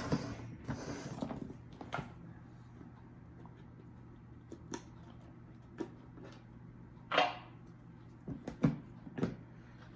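Trading card box being pulled out and opened by hand: scattered clicks, taps and rustles of packaging, with a longer brushing sound about seven seconds in.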